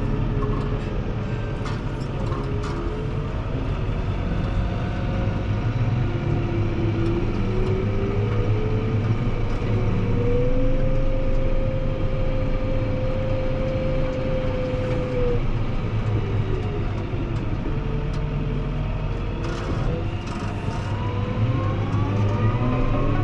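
Fendt 724 Vario tractor's diesel engine running steadily, heard inside the cab while the tractor pushes snow with a front plough blade. Whining tones glide up and down in pitch with speed and load, hold steady for a few seconds midway, and climb again near the end.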